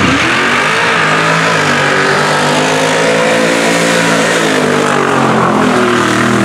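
Mud truck engine held at high revs as the truck plows through a mud pit, its tyres slinging mud and water. The engine note climbs at the start, holds, then drops lower about five seconds in.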